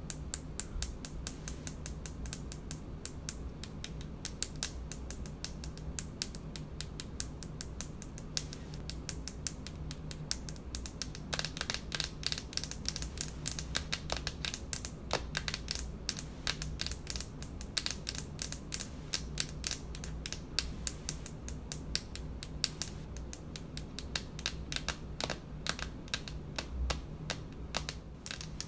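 Long fingernails tapping rapidly on a hard speckled countertop: a dense, continuous patter of sharp clicks, several per second, over a faint steady low hum.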